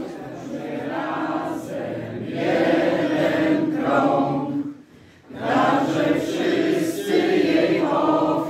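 A large group of men and women singing a song together, with a short break between lines about five seconds in.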